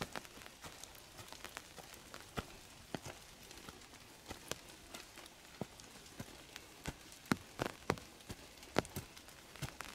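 Irregular sharp taps and clicks, roughly one or two a second and unevenly spaced, over a faint steady hiss.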